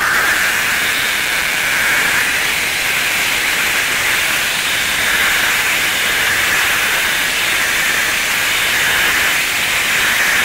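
Plastic stretch wrap film being drawn off its roll through a bale wrapper's pre-stretch rollers and wound onto a round bale: a steady hiss.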